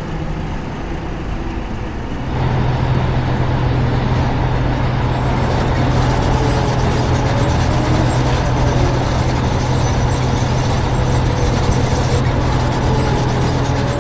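Heavy construction-vehicle engine running steadily, with a steady low hum. It gets louder about two seconds in and then holds.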